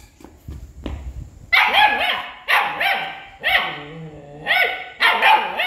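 German shepherd puppy barking in short high-pitched yaps, in bursts of two or three about once a second, starting about a second and a half in.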